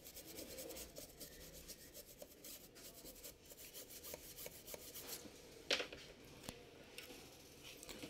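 A stiff-bristled brush scrubbing the RAM slots of a laptop motherboard: a faint, dry rubbing made of many quick short strokes, with one sharper scrape about two-thirds of the way through.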